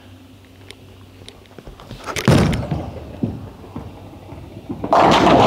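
Storm Pitch Black urethane bowling ball landing on the lane with a sudden thud about two seconds in, rolling with a low rumble, then crashing into the pins near the end.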